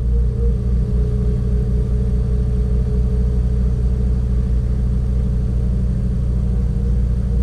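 2017 Subaru WRX's turbocharged flat-four engine idling steadily just after starting.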